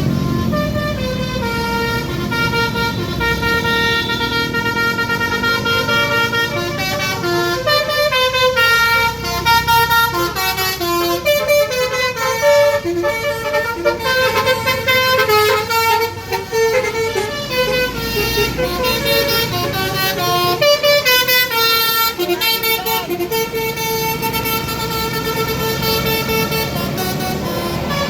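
Bus basuri horns, the multi-tone telolet musical horns of Indonesian buses, playing tunes note after note. The notes are longer and held in the first several seconds, then change more quickly, over a low engine rumble.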